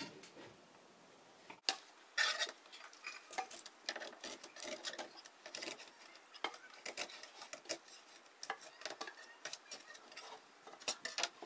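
Fillet knife cutting into a European whitefish on a cutting board, with irregular crisp clicks and scrapes.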